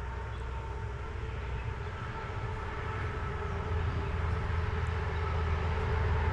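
Low, steady rumble of a passing heavy vehicle with a faint engine hum, slowly growing louder.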